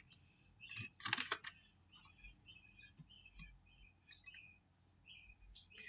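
A quick run of computer keyboard keystrokes about a second in, then a few short, high bird chirps.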